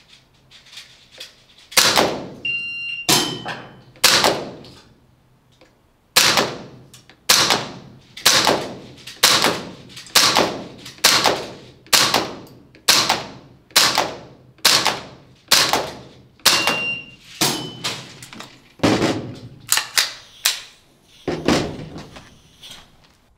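APFG MPX gas blowback airsoft rifle firing single shots about once a second, each a sharp crack with the clack of the bolt cycling and a short echo. After the first few shots there is a pause of about two seconds before the steady string resumes.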